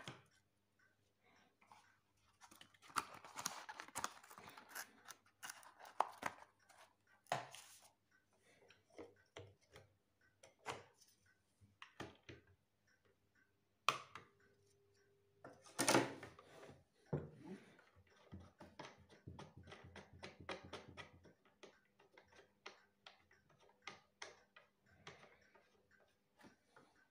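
A LOMO Russ 8mm projector being handled: irregular clicks, knocks and light plastic-and-metal clatter as its reel is taken off, the reel arm is folded down and the machine is picked up. Two sharper knocks come about halfway through, two seconds apart.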